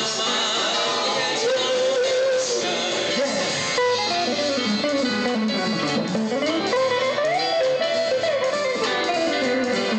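Live band music with guitar to the fore.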